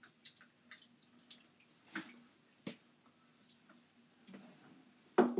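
Small splashes and drips of water in a plastic tub as a cat's paws are washed and lathered with bar soap, with a few sharp clicks and a louder knock near the end.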